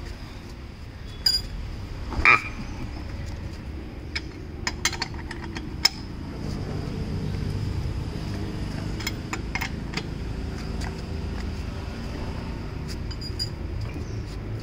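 Scattered metallic clicks and clinks of an L-shaped wheel spanner on the wheel nuts of a Toyota Innova as it is pushed round by foot to tighten them. The loudest is a ringing clink about two seconds in. A steady low rumble runs underneath from about six seconds in.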